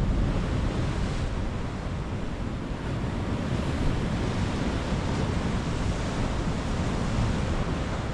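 Sea waves washing on a rocky shore in a steady surf, with wind noise on the microphone.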